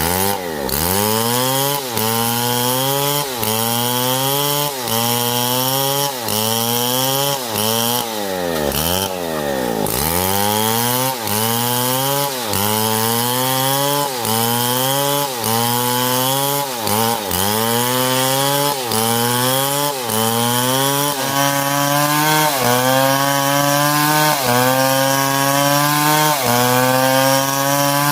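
STIHL MS661 two-stroke chainsaw cutting wood under load. Its engine pitch drops and climbs again over and over, about every second and a half.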